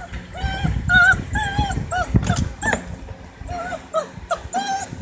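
Six-week-old puppies yipping and whining, about a dozen short high-pitched cries in quick succession, as they squabble over a toy. Low scuffling noise runs underneath.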